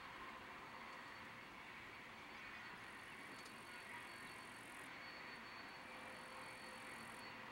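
Faint, steady sound of a distant freight train's cars rolling past on the rails, with a faint high hiss that comes and goes twice midway.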